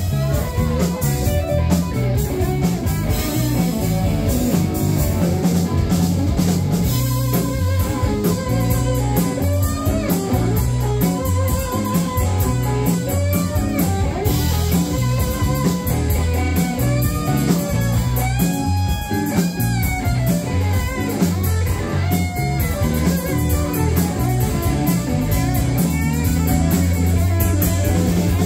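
Live blues-rock band playing at full volume: an electric guitar carries a lead line with bending notes over bass guitar and a drum kit.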